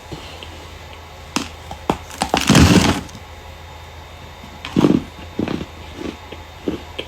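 Dry starch chunks being crushed and crumbled: a few sharp cracks, then a dense crunching burst about two and a half seconds in, the loudest part, followed by a second crunch near five seconds and scattered smaller snaps.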